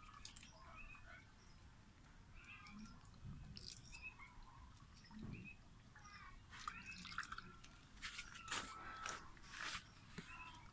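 Quiet outdoor ambience with faint bird chirps; in the second half, a run of sharp crackles and clicks as boiled duck eggshells are cracked and peeled by hand.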